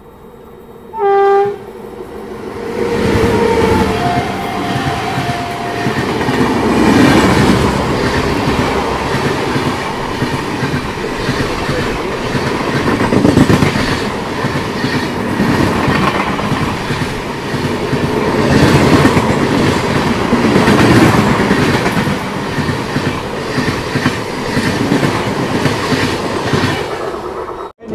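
An electric locomotive gives a short horn blast about a second in. Its passenger train then passes close by on the next track: a loud, steady rush of coaches with wheels clattering over the rail joints, which cuts off suddenly near the end.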